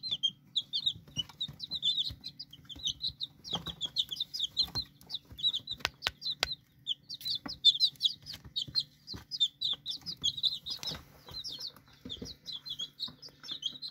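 A group of young chickens peeping constantly, quick high chirps in clusters, with scattered sharp taps and a low steady hum beneath.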